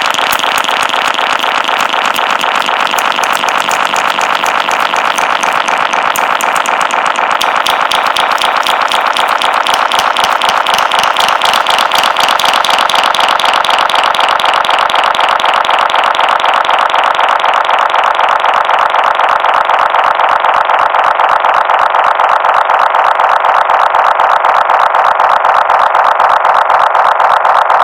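Finger snaps run through a heavy delay effect, the echoes piling up into a dense, rapid, steadily repeating clicking that sounds like a radio signal from space. The sharpest top end fades away over the last several seconds.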